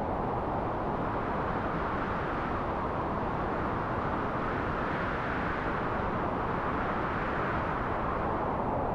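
Wind sound effect: a steady rush of wind that swells a little about halfway through.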